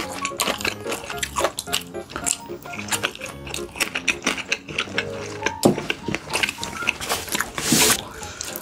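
Background music under close-up eating sounds: many quick wet clicks of chewing and mouth noises, with a louder rushing slurp near the end.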